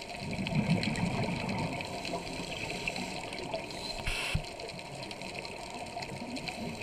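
A scuba diver's exhaled bubbles, heard underwater through the camera housing: a bubbling rumble that is strongest in the first two seconds and then eases off. A brief hiss comes about four seconds in.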